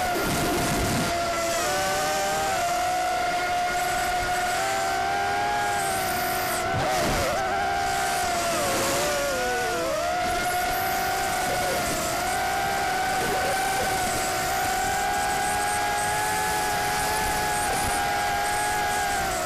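Motors and 5-inch propellers of a 4S racing quadcopter whining steadily in fast low flight, the pitch wavering up and down with throttle and dipping briefly about eight to ten seconds in.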